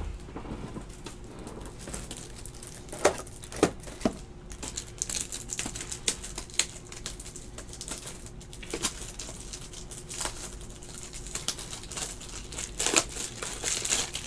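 Crinkling plastic and scattered sharp clicks and taps as rigid plastic card top loaders are handled and pulled out.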